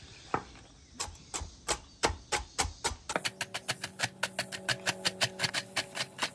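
Chef's knife chopping crunchy Cheetos on a wooden cutting board, each stroke a sharp knock of the blade on the wood. The strokes come slowly at first, about three a second, then quicken to about five or six a second from about three seconds in.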